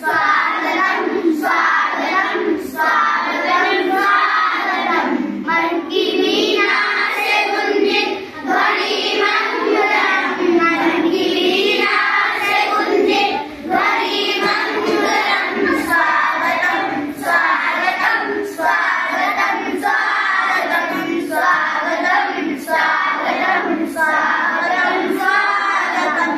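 A group of schoolchildren singing a Hindi welcome song (swagat geet) together in unison.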